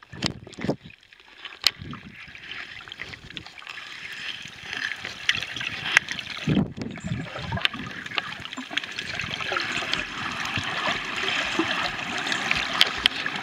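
Underwater sound near a rocky reef: a steady watery hiss full of small crackling clicks, growing louder toward the end, with a brief low whoosh of moving water about six and a half seconds in.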